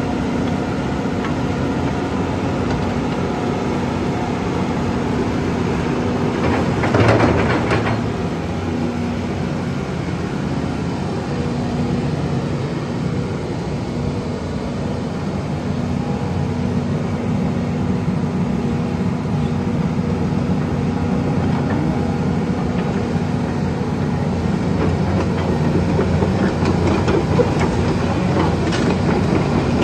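Volvo EC210BLC crawler excavator's diesel engine running steadily while its hydraulic boom, arm and bucket are worked, with a louder surge about seven seconds in and again near the end.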